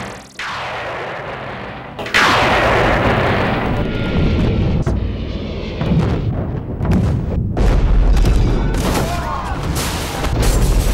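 Space-battle film soundtrack: a sudden explosion about two seconds in, followed by continuous low rumbling booms and repeated weapon blasts over music.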